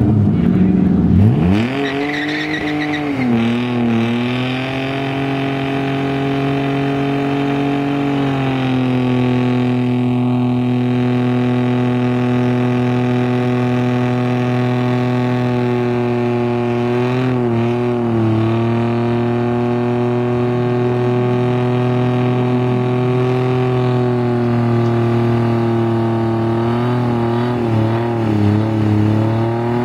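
Car engine revved up hard and then held at high, steady revs through a long burnout, the rear tyres spinning on the asphalt. The revs waver briefly twice, once about two-thirds of the way through and again near the end.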